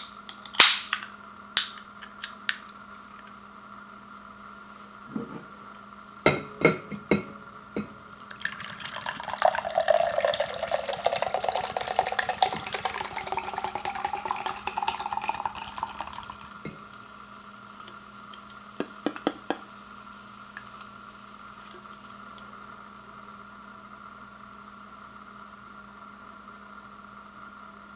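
A few sharp clicks and taps, then about eight seconds of carbonated orange soda pouring from an aluminum can and fizzing, its pitch rising as the vessel fills.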